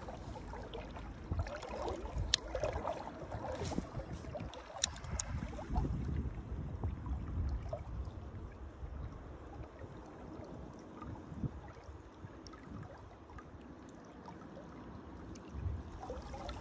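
Shallow river water flowing and lapping, with a few sharp clicks in the first six seconds.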